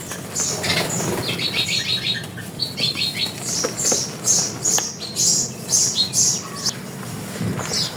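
Small birds chirping: a string of short, high, downward-sweeping chirps with a quick trill about a second and a half in, over a faint steady background.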